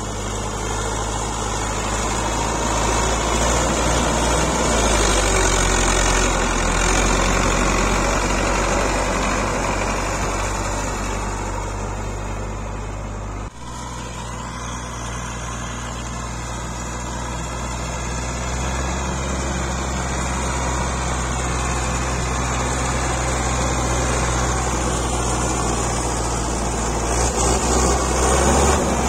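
Belarus 510 tractor's diesel engine running under load as it pulls a rear blade through dry soil. It grows louder as the tractor comes close, with a sudden break about halfway through.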